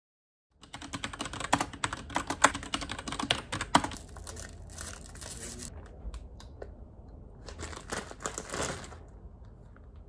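Typing on a computer keyboard: a fast run of key clicks for the first few seconds, a quieter pause, then a second short burst near the end.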